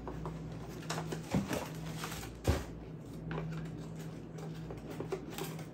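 Hands rummaging in a cardboard box: cardboard flaps and plastic bags rustling, with scattered light knocks of bottles and packaging and a thump about two and a half seconds in. A steady low hum runs underneath.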